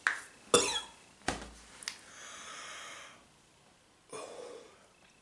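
A man coughing a couple of times, then a steady hissing breath through the mouth for about a second, and a short groan near the end. It is his reaction to the burn of concentrated capsaicin extract in his mouth and throat.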